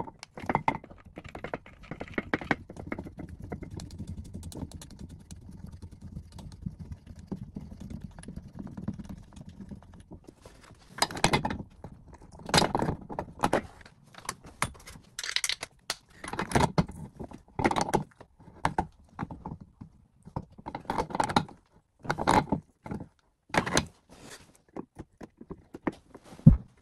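Metal clicking and clinking of a Nerrad Tapex basin tap spanner working on the tap connector nuts under a basin as they are tightened. The clicks are sharp and irregular, come in clusters, and mostly fall in the second half.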